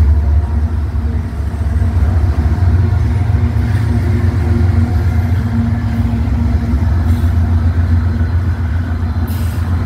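Union Pacific diesel freight locomotives passing close by, their engines running with a loud, steady low drone.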